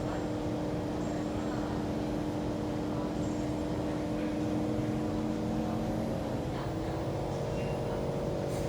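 Kawasaki C151 train standing at the platform, giving a steady hum made of several tones from its onboard equipment, with a slight shift in pitch about six or seven seconds in.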